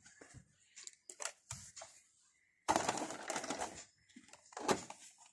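Handling noise from a plastic RC toy car being picked up and turned over: scattered light clicks and knocks, with about a second of rustling scrape a little past halfway and another brief one near the end.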